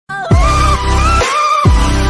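Intro music starting abruptly: a melody over deep drum hits that fall in pitch, two of them.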